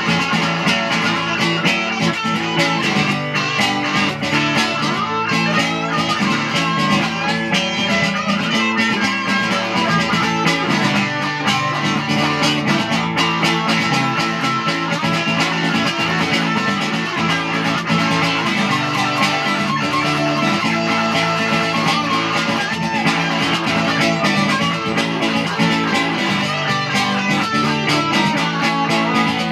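Live guitar music: an instrumental break in a song, with plucked guitar playing steadily and no vocals.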